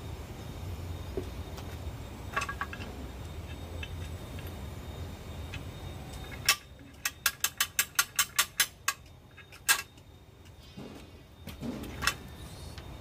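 Sharp metallic clicks and knocks from a hand-lever seed-cracking punch working a hard pangi (kepayang) seed: a quick run of about ten evenly spaced clicks, some five a second, then a few single knocks, over a low steady rumble.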